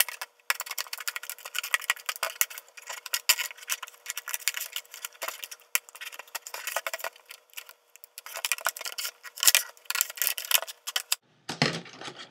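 Hard plastic clamshell packaging being worked open, a dense run of crackling and clicking plastic with a couple of short pauses.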